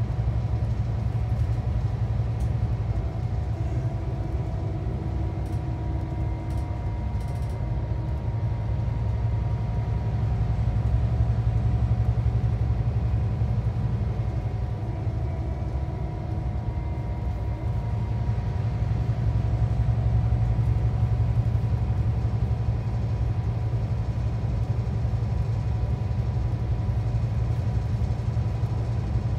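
Inside a Scania K360 coach with an Irizar i6 body, cruising at steady speed. The rear-mounted five-cylinder diesel and the tyres on the road give a steady low drone, with faint steady whining tones above it and only gentle rises and falls in loudness.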